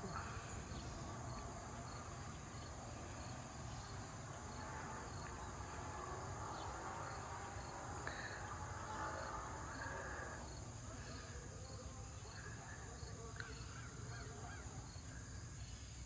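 Evening chorus of crickets and other insects: a steady high trill with an evenly repeating chirp running through it.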